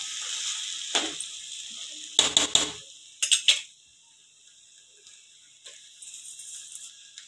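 Basmati rice and vegetables sizzling as they are stir-fried in a steel pot, a metal spoon scraping and knocking against the pot several times. The sizzle fades and the knocks stop about three and a half seconds in, leaving it much quieter.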